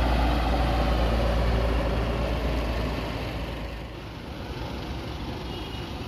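A medium-size bus driving past with its engine running. The engine is loud at first and fades over about three seconds as the bus moves away, leaving a steady low background of engine noise.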